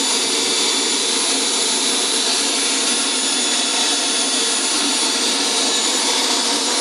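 RC model jet turbine idling steadily at about 35,000 rpm: an even rushing hiss with a thin, steady high whine above it.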